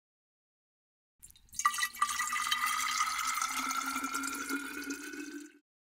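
Water sound effect for a logo intro, like liquid pouring and filling, with a slowly rising tone underneath. It starts about a second and a half in and cuts off just before the end.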